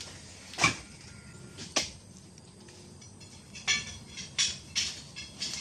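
Oil palm fruit bunches being loaded onto a pickup truck: two sharp knocks, then a run of clattering, clinking hits about two-thirds of the way in.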